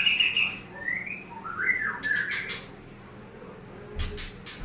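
A bird calling: a run of short chirps and rising, sliding squawky notes over the first couple of seconds, then a few sharp clicks near the end.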